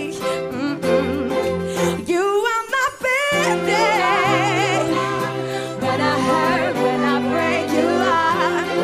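A love song with a singing voice in wavering, ornamented runs over sustained low notes. The low notes drop out briefly about two seconds in, then return.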